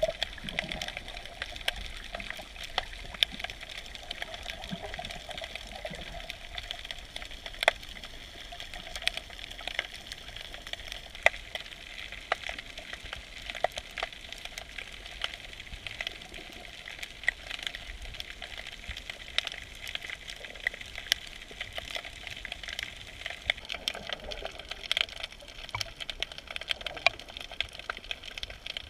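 Underwater ambience heard through the camera housing: a steady hiss thick with constant, irregular crackling clicks, the sound of a shallow rocky reef where snapping shrimp crackle.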